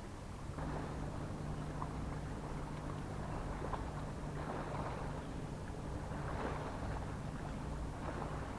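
Steady low hum of a boat engine over a wash of sea and wind noise, the hum starting about half a second in and stopping near the end.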